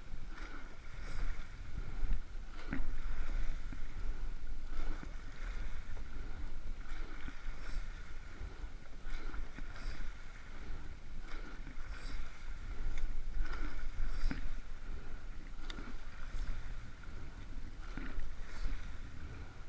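Rowing eight under way at a rate of 28 strokes a minute, heard from the cox's seat. The oars knock in their gates about every two seconds over a steady rush of water, and wind rumbles on the microphone.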